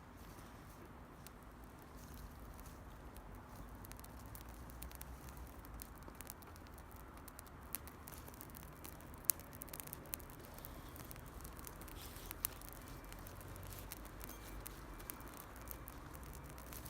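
Scattered small crackles and snaps of dry twigs and leaf litter over a low steady background rumble. They come more often from about six seconds in, with one louder sharp snap near the middle.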